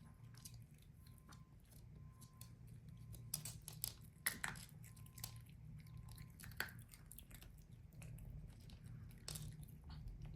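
Small dog crunching small dry kibble: faint, irregular crunches and clicks, with a few louder bites about four seconds in and again near the end.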